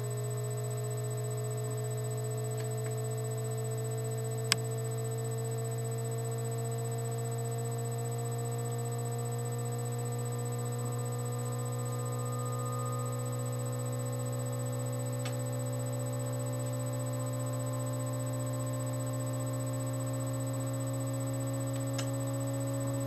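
Steady low electrical hum with several faint tones slowly rising in pitch, and a single sharp click about four and a half seconds in.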